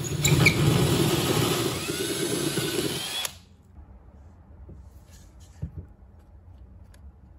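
Cordless drill spinning a 1.5-inch hole saw into drywall to enlarge the hydrant's entry hole: steady motor whine and cutting noise, with a rising whine near the end, cut off abruptly about three seconds in. After that, only faint clicks of hands handling the hydrant cover.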